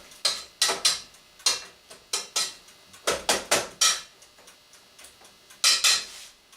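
Kitchen utensils knocking and clinking against pots and dishes: a dozen or so sharp, irregular knocks, a few of them ringing briefly.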